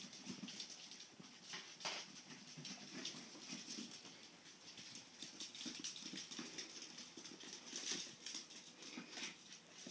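Puppies' claws clicking and paws pattering on a hard floor as they scamper and wrestle, in quick, irregular taps.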